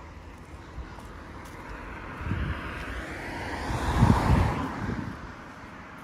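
A road vehicle passing by, growing louder to a peak about four seconds in and then fading away.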